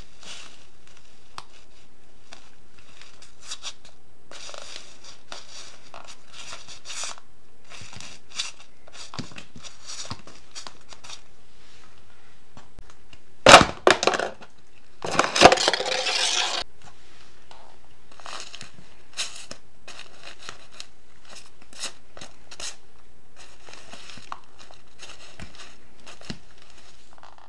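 A high-heeled sandal pressing down on soft squishy toys, giving runs of short crinkling, crushing crackles. About halfway through, a clear plastic cup cracks and crumples loudly under the heel for about three seconds.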